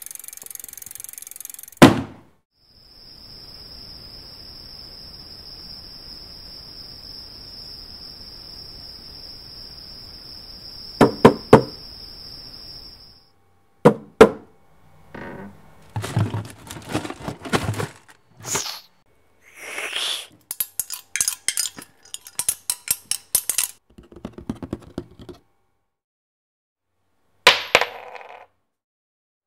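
Hand-made foley sound effects for an animated film. A sharp knock comes first, then a long steady high-pitched tone over a faint hiss. After that comes a run of separate clinks, knocks, clicks and short rustling noises.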